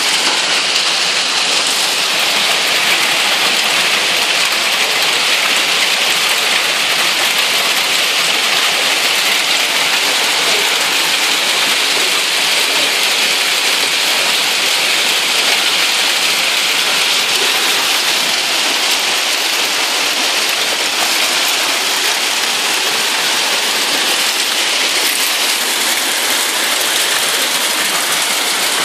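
Heavy hail mixed with rain falling on the street and parked vehicles: a steady, dense patter with no break or change.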